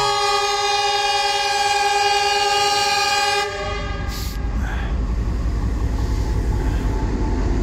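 Horn of a DF4 diesel locomotive sounding one loud, multi-tone blast of about three and a half seconds that cuts off sharply. After it, the low rumble of the locomotive's diesel engine builds as it draws near.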